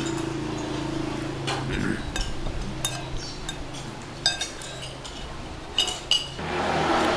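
Metal fork and spoon clinking and scraping against ceramic plates while eating, a scattered handful of sharp clinks over a steady low hum. Near the end a louder rushing noise rises.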